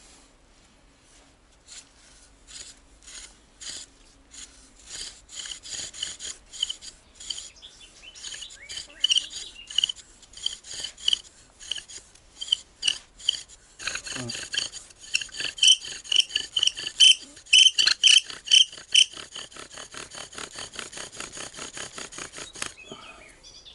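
Bow drill for friction fire-lighting: the wooden spindle rasping in the fireboard with each back-and-forth stroke of the bow, its string a tent guy-line cord. The strokes come about two to three a second, get faster and louder past the halfway point, then ease off and stop near the end.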